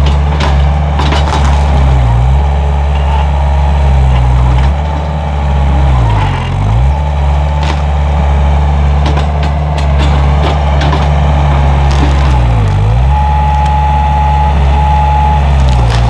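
Takeuchi TL130 compact track loader's diesel engine running hard as the machine pushes into standing trees. Its note dips and recovers several times as it bogs under load, over cracking and splintering of wood and branches. Intermittent beeping near the end.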